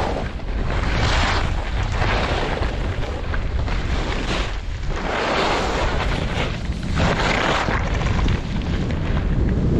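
Edges carving turns in snow on the way down a ski trail, a hissing scrape swelling with each turn about every second or so, over a steady low rumble of wind on the microphone.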